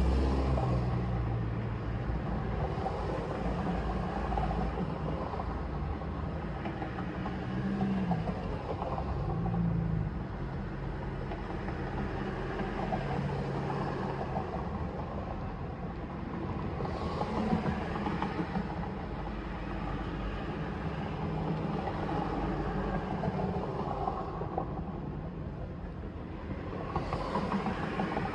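Mercedes GL450 running: a steady low rumble with the engine note shifting, and briefly swelling three times.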